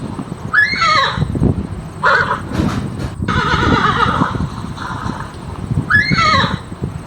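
A horse whinnying: a call with a rising-and-falling arched pitch and a wavering, shaky part. The same whinny sequence repeats twice, about five seconds apart.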